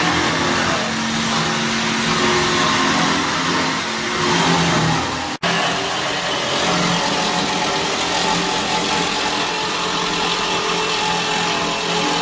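Steady, loud machine noise like a motor running, broken by a sudden brief cut about five seconds in.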